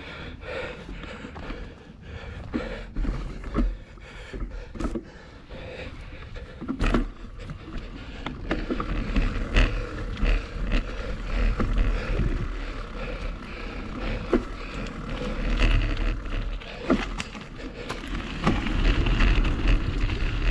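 Mountain bike rolling over a dirt trail: tyres on dirt and leaves, with many rattling clicks and knocks as the bike goes over bumps, and wind rumbling on the microphone. It gets louder toward the end.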